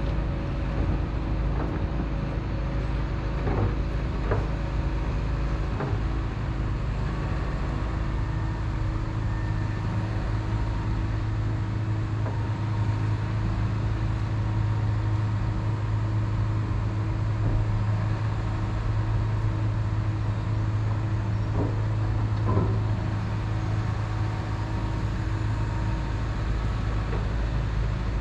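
Caterpillar 335 Next Gen excavator's diesel engine and hydraulics running steadily under load, heard from inside the closed cab. The engine note swells through the middle, with a few short knocks from the work now and then.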